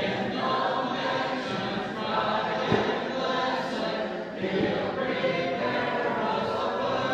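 Congregation singing a hymn together a cappella, many voices without instruments.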